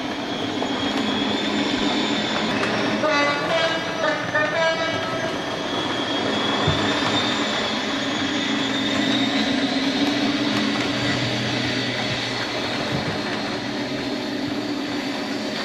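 Electric motor and gears of an O gauge model rail bus running along the track: a steady hum with a high whine that slowly rises in pitch, and the wheels running on the rails. A few short pitched sounds come in about three to five seconds in.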